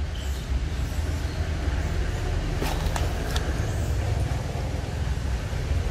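Steady low rumble of wind buffeting the microphone, with a few brief rustles or clicks about three seconds in.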